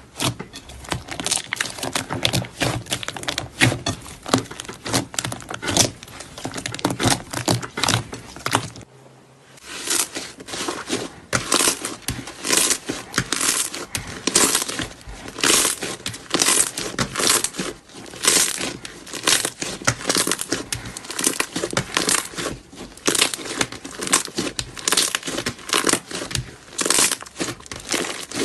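Crunchy slime being squeezed and pressed by hand, a dense crinkling crackle. About nine seconds in, the sound drops out briefly, then comes back as louder crackly squishes about twice a second.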